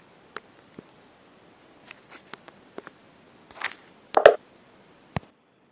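Faint background hiss with scattered small clicks and light knocks. A louder rustle comes about three and a half seconds in and a sharp knock just after four seconds, then the sound cuts off abruptly shortly before the end.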